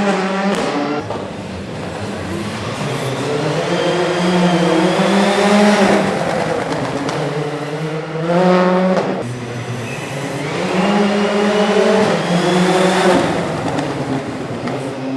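Rally car engine revving hard, its pitch climbing and then falling back again and again as it accelerates, shifts and lifts, with sharp climbs at the start, about halfway through and near the end.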